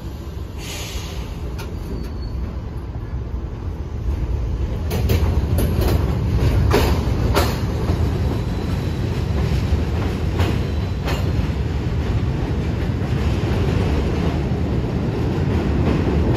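New York City subway train of R68-type cars rolling along the track, with a steady low rumble and sharp clicks from the wheels over rail joints and switches. It gets louder about four seconds in.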